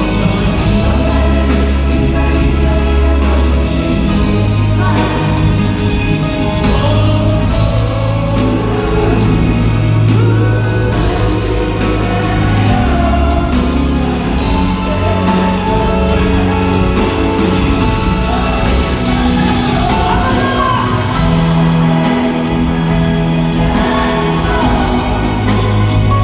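Live band playing a ballad while a large crowd sings along loudly, with sustained bass notes under the massed voices.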